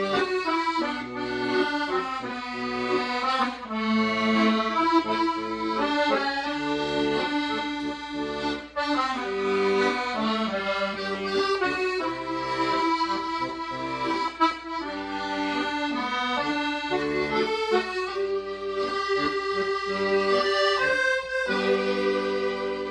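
Accordion playing a slow melody in held, reedy notes over bass and chords, settling on a long sustained chord near the end.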